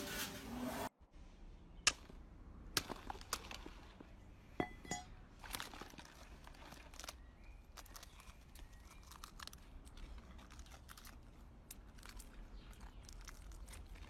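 A louder noise cuts off suddenly about a second in. Then come scattered faint clicks and rustles of young guinea pigs being handled and shifting in a plastic tub.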